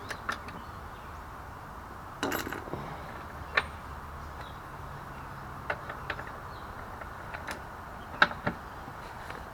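Scattered metallic clicks and clinks of hand tools working on a motorcycle's rear axle nut, a short cluster about two seconds in and single sharp clicks after it.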